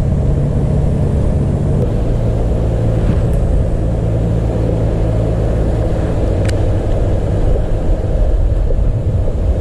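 Steady motor drone over a low rumble, typical of the electric paddlewheel aerators churning the pond; a faint click about six and a half seconds in.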